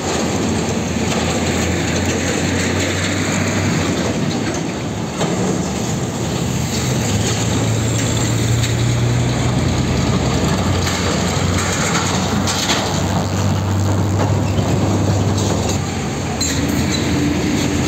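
Heavy diesel container trucks pulling through a junction, their engines running with a low, steady drone over road and traffic noise. The sound changes abruptly about five seconds in, and there are a few sharp knocks later on.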